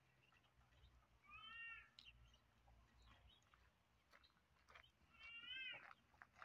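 A cat meowing twice, about four seconds apart, each call short and rising then falling in pitch.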